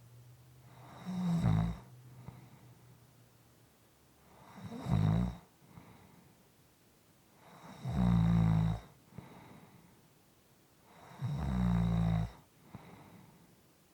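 A person snoring at a regular pace: four loud snores about three and a half seconds apart, each about a second long, with quieter breaths between them.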